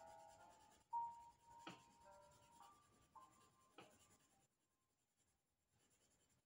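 Faint scratching of a Derwent Coloursoft coloured pencil shading a swatch on paper, with a couple of light taps. Quiet background music plays under it for the first few seconds.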